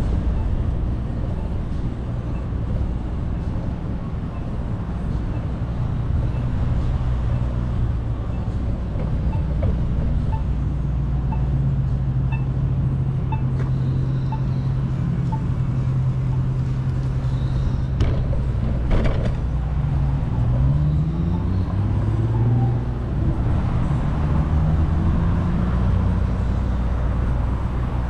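City street traffic: a steady low rumble of vehicles, with faint regular ticks about every 0.7 s for the first half. An engine rises and falls in pitch about two-thirds of the way through.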